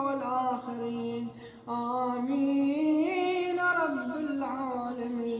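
A man's voice chanting the closing lines of an Arabic supplication in long, drawn-out melodic phrases, with a short pause for breath about a second and a half in.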